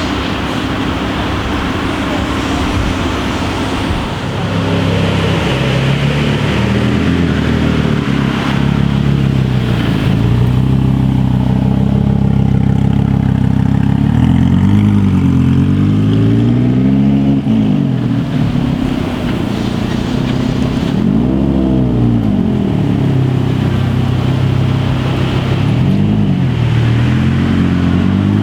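Lamborghini supercar engine idling with a steady low note, blipped several times in the second half, its pitch rising and falling quickly with each rev.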